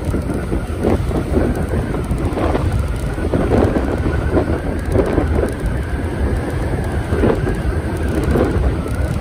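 Motorcycle riding along: the engine running steadily under road noise, with wind gusting on the microphone.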